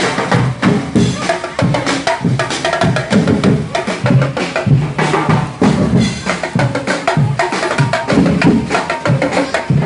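Marching band playing in the street, its drums beating a busy, steady rhythm.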